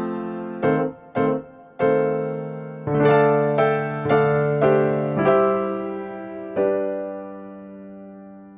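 Background music: electric-piano-style notes and chords played one after another, each ringing and decaying. A final chord near the end is left to ring and fade.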